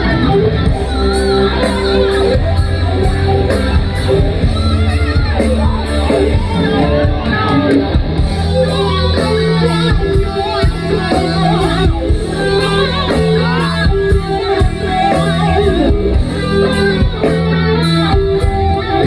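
Rock band playing live through a concert PA: distorted electric guitars, bass and drums with a steady cymbal beat.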